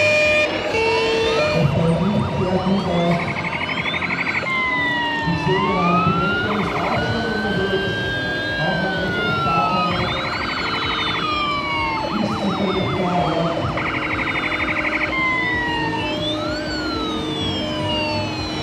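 Several model fire-truck siren sound modules playing at once. A two-tone horn alternates high and low near the start and again near the end, overlapping with slow rising-and-falling wails and bursts of fast yelping warble.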